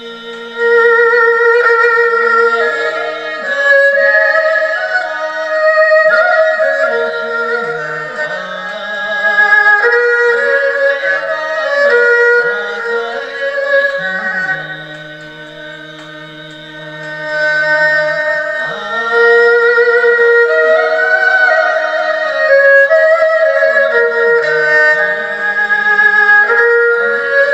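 Music: a melodic lead line of held, slightly wavering notes over a lower accompaniment, played as an ensemble through a home sound card, softer for a couple of seconds about halfway through.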